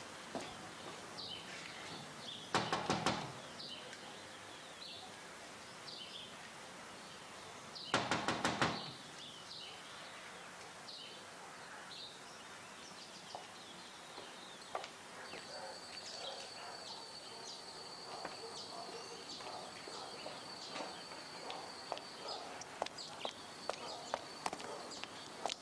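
Small birds chirping all through, with two short bursts of rapid knocking on a front door, the first about three seconds in and the second about eight seconds in.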